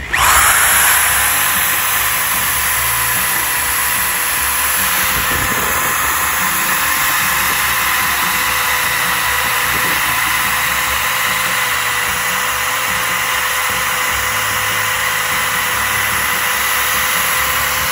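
Corded electric drill running at a steady pitch, its spade bit boring a ventilation hole through a wooden beam.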